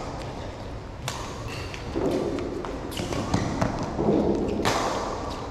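Badminton rackets striking a shuttlecock in a fast doubles rally: a sharp crack about every two seconds, with quieter thuds of feet on the court between them.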